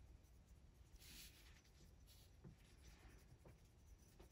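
Faint scratching of a sharpened Brutfuner oil-based colored pencil shading on paper in light strokes, the clearest stroke about a second in.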